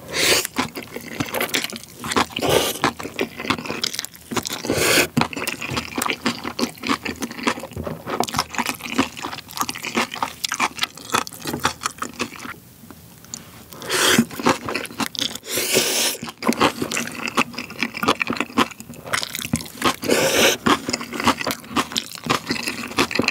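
Close-up eating sounds: Chapagetti black-bean instant noodles slurped in several loud pulls, between stretches of wet chewing and the crunch of napa cabbage kimchi.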